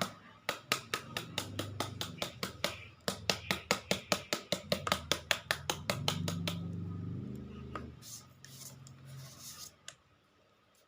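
Pestle pounding in a mortar, making papaya salad: quick, even knocks at about four to five a second. The pounding stops about six seconds in.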